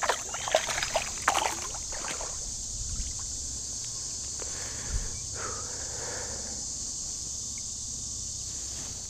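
Outdoor creek ambience: a steady high insect drone over low water and wading noise, with brief handling sounds near the start and a single dull thump about halfway through.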